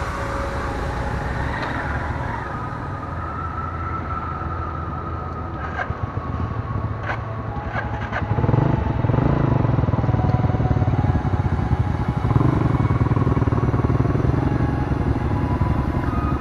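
Motorcycle engine running while riding, growing louder about halfway through as it revs up, with a few sharp knocks shortly before.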